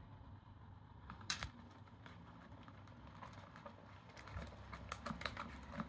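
Wooden popsicle stick stirring slime mixture in a plastic tub, giving faint irregular clicks and taps against the plastic. One sharper click comes about a second in, and the clicking grows quicker near the end.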